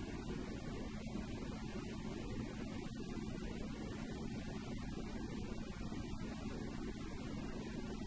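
Goggomobil's small two-stroke engine droning steadily at cruising speed, heard from inside the cabin together with road noise. The pitch holds steady throughout.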